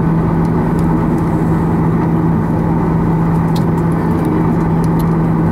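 Steady cabin noise inside a Boeing 737-800 taxiing, heard over the wing: the engines' running drone mixed with air-conditioning rush, with a constant low hum.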